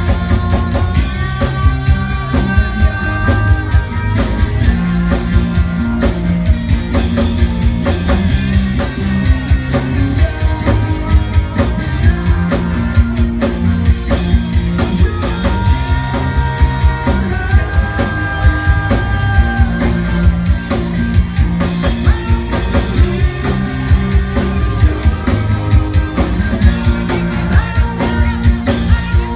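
Live rock band playing a song: electric guitars, bass guitar and drum kit at a steady beat, with held melody notes over the top.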